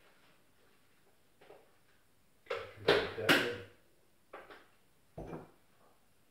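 Kitchen clatter from work at the counter: a quick cluster of knocks and clinks of crockery or utensils in the middle, then a few lighter knocks.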